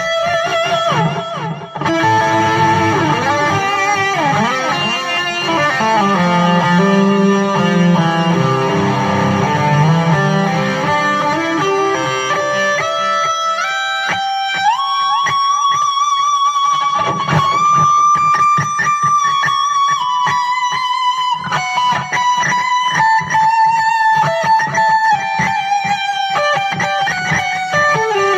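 Electric guitar playing a lead solo through an amplifier's solo tone, with quick note runs in the first half. About halfway in, a note climbs and is held long with vibrato, drifting slowly down toward the end.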